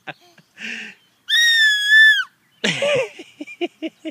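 A baby squealing and laughing on a swing: a sharp breath in, one long high-pitched squeal lasting about a second, then a burst of quick giggles.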